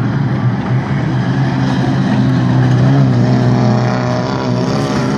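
Engines of small hatchback dirt hotrod race cars running hard as they race round a bend of a dirt oval, their note rising and falling with the throttle over a steady low drone.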